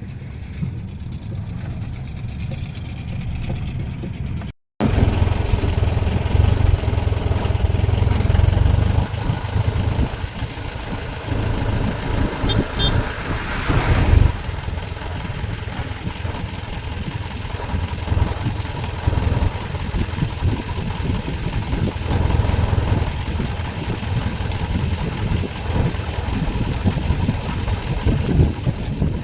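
Jeep engine running steadily, the sound cut off for a moment about four and a half seconds in and then continuing louder.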